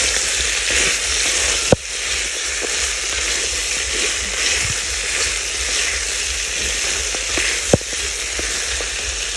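Goat meat sizzling in hot cooking oil in an aluminium pot as it is stirred with a wooden spoon, a steady hiss. Two sharp clicks cut through it, one about two seconds in and one about eight seconds in.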